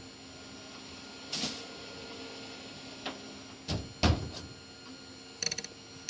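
Handling noises from work just off-picture over a steady low hum: a few knocks, the loudest about four seconds in, and a quick run of light clicks near the end.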